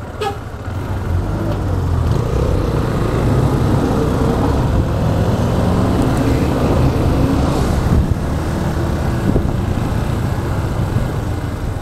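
Motorcycle engine running as the bike pulls away through traffic and rides on, its sound growing louder over the first couple of seconds and then holding steady, with road noise. A brief click comes just after the start.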